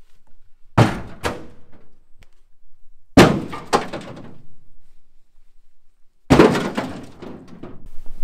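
Scrap pieces torn out of a sailboat, thrown down from the deck, crashing and clattering onto a debris pile below three times, each crash with a quick second hit as pieces bounce.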